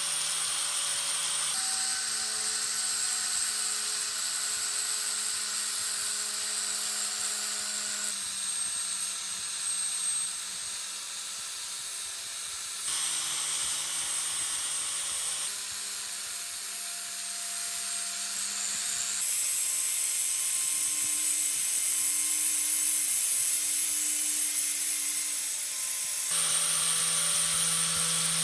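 A rotary power tool's sanding disc grinding rust off the steel of antique scissors. A steady motor whine runs under a loud, high grinding hiss, and the pitch and tone jump abruptly several times.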